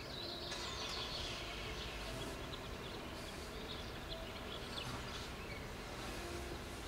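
Outdoor ambience: a steady low background hum with scattered short bird chirps.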